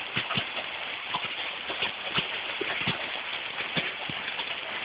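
Hailstorm: large hailstones falling with a steady hiss, and irregular sharp knocks of stones hitting hard surfaces several times a second.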